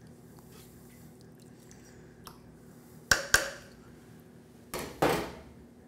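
A small knife stirring seasoning, meat and water in a slow cooker's stoneware crock: faint wet stirring, then two sharp clinks of the knife on the crock a little past halfway, and a couple of duller knocks near the end.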